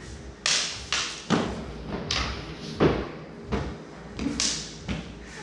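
Practice swords and daggers knocking and clacking together in irregular sharp hits during sparring, mixed with footfalls on a hard floor.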